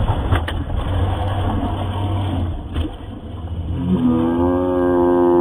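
Rough rushing rumble as the model Tyne lifeboat slides down its slipway and hits the water. About four seconds in, a droning tone with many overtones slides up briefly and then holds steady.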